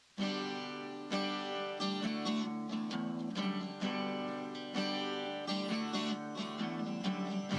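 Music: a song opening on guitar, with strummed and picked chords that ring on and are re-struck about once a second, starting abruptly just after silence.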